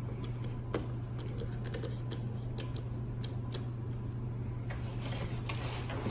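Scattered light clicks and taps as the gear cover is fitted and handled on an RC truck, over a steady low hum.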